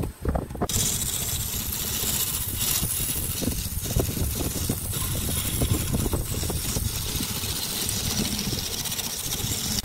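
Benchtop wood lathe running with a turning tool cutting the spinning wooden vase: a steady hissing scrape of the cut over the low rumble of the lathe's motor. The hiss sets in a moment after the start.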